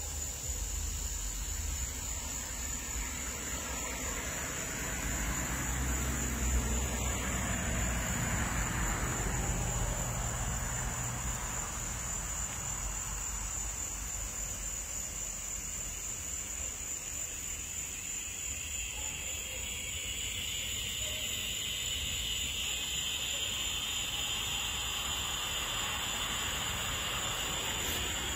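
A steady, high-pitched insect drone, with a low rumble beneath it that is strongest in the first ten seconds or so.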